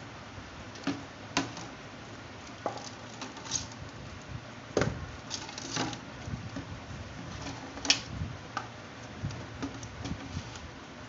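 Empty clear plastic drinks bottle being handled, turned and pressed on a tabletop: irregular crackles and clicks from the thin plastic, the sharpest about five and eight seconds in.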